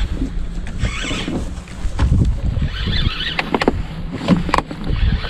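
Sounds of a fishing boat on the river: a steady low hum with water and wind noise, and a cluster of sharp knocks a little past halfway through.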